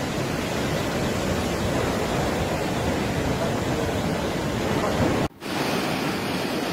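Tunnel boring machine breaking through the tunnel wall: a steady dense rushing noise of the cutterhead grinding and rubble and spray pouring out. It breaks off for an instant a little past five seconds, then carries on.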